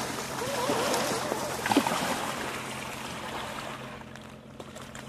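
Small waves lapping and splashing against the rocks at the water's edge, with wind on the microphone and a brief sharp knock about two seconds in.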